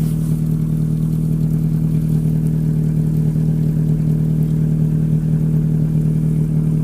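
Hyundai Accent engine idling steadily, heard close to the exhaust. The exhaust has just been patched and now runs almost entirely out the tailpipe, with only a small leak left.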